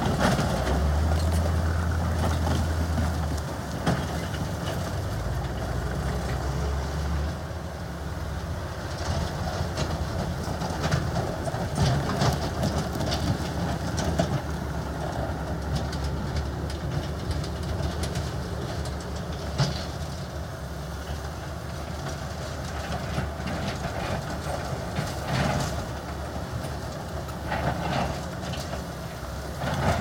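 Heavy diesel earthmoving machinery running steadily, with a strong low hum for the first few seconds and scattered metallic clanks and clatter throughout.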